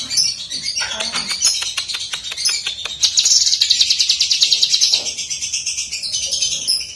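Cucak kinoi leafbird singing vigorously: fast trills of rapidly repeated high notes, mixed with varied chirps and a short run of lower notes.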